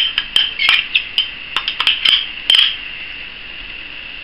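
A metal spoon clinking and tapping against a frying pan in quick, irregular strikes as tomato paste is knocked off it, for about two and a half seconds. The pan of mushrooms and beef sizzles steadily underneath and is heard alone near the end.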